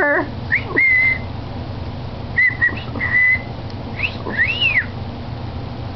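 Cockatiel whistling: a few clear notes held at one pitch, then a rising note and an arched note that rises and falls.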